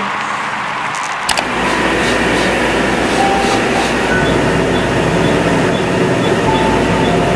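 Laser hair-removal machine running during a treatment: a loud, steady whooshing noise that comes in with a click about a second in, with a few short beeps over it.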